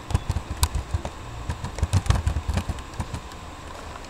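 Irregular run of soft low knocks with a few sharper clicks, several a second, easing off near the end: a computer keyboard and mouse being worked at a desk.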